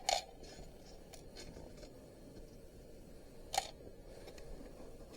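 Sharp clicks and light ticks as small scrap brass pieces are handled on a digital scale: a loud click at the start, a few faint ticks after it, and another sharp click about three and a half seconds in.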